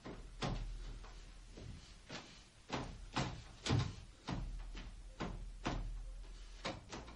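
Irregular dull knocks, about two a second, of a masher pounding boiled potatoes in a pot, over a low steady hum.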